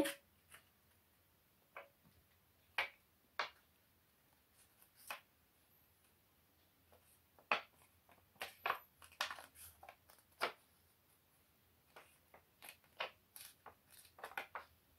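A sheet of paper being handled and folded by hand, giving scattered short crackles and rustles as it is creased, with quiet gaps between them and more of them in the second half.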